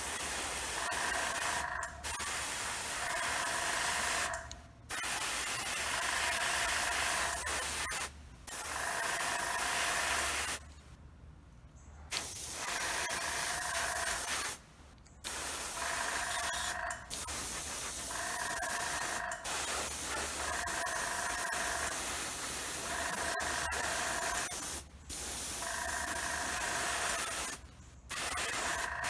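Airbrush spraying paint in bursts: a loud hiss that stops briefly about ten times as the trigger is released and pressed again. A low steady hum runs underneath.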